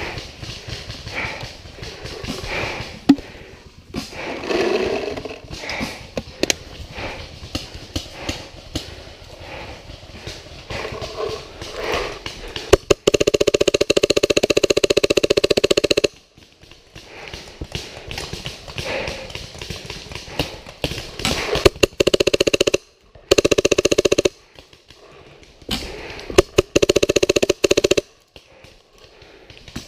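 Paintball marker firing, most likely the player's own Tippmann: sharp shots scattered throughout, with long rapid strings of fire about halfway through and twice more near the end.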